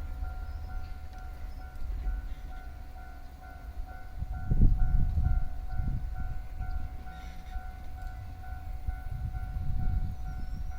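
Japanese level-crossing warning bell ringing: a rapid, even, repeating electronic ding. Underneath is a low rumble of rail traffic, which swells about four seconds in.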